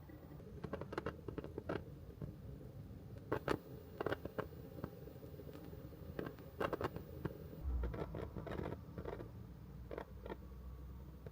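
Scattered light taps and clicks, coming irregularly in small clusters, over a steady low rumble.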